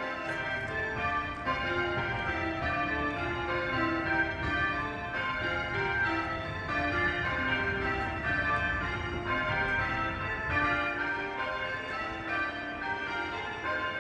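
Church tower bells change ringing: the bells are struck one after another in quick, even succession, each note ringing on over the next.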